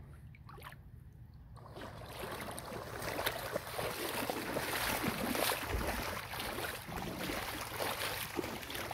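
Dogs running and splashing through shallow lake water: a busy, uneven patter of splashes that starts about two seconds in and keeps going.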